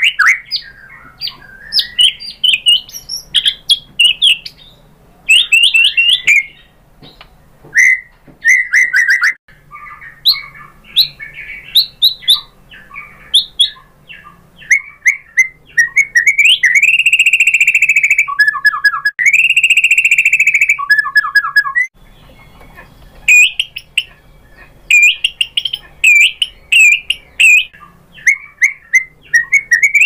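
White-rumped shama (murai batu) singing a loud, fast, varied song of whistles, chirps and trills. Twice, about halfway through, it holds a long whistled note.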